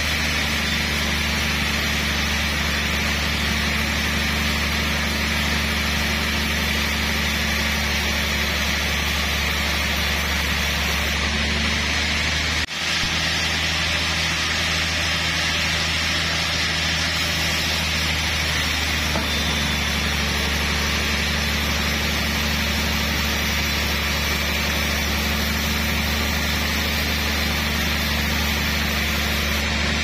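Band sawmill running steadily with a low hum, its blade sawing through a large trembesi (rain tree) log. The sound breaks off for an instant about 13 s in.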